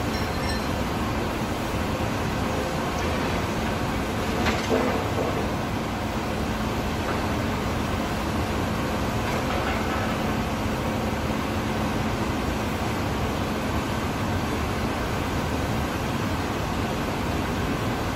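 Steady rumbling drone of a large industrial workshop hall's machinery, with a faint constant hum and one short knock about four and a half seconds in.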